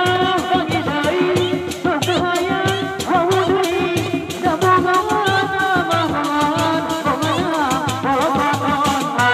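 Sundanese dog-dog drums, several small frame drums beaten with sticks in a fast, steady rhythm, with a wavering melody over the top.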